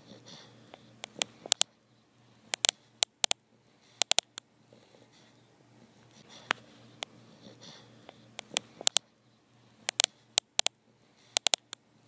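Sleeping bulldog snoring: soft, breathy snuffles with many sharp clicks coming in quick clusters of two to four.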